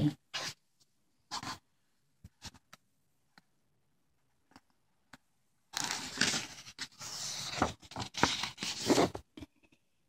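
Pages of a paperback picture book being turned by hand, the paper rustling and sliding. Two brief rustles come near the start, then a longer rustle from about six to nine and a half seconds in as the next page is turned over.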